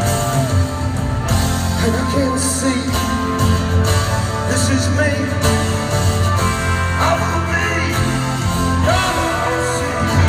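Rock band playing live in an arena, heard from the crowd: acoustic guitar and drums with the rest of the band, and a voice singing in places.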